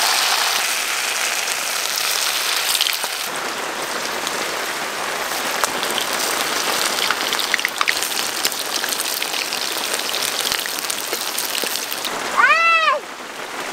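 Marinated chicken pieces sizzling as they deep-fry in hot oil in an aluminium kadai, a steady crackling hiss. Near the end a short high cry rises and falls in pitch.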